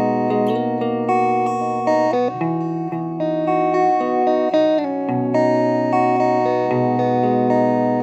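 Guitar in DAEAC#E tuning playing sustained, ringing chords over a low bass note, changing chords about every two to three seconds.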